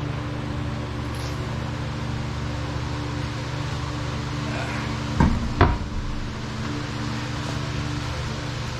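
Two sharp knocks about half a second apart, a little past the middle, over a steady low hum with faint steady tones in it.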